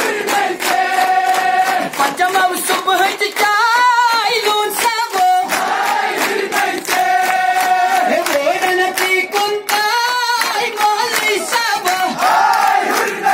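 A large crowd chanting a slogan in unison to a sung tune, with rhythmic hand-clapping throughout.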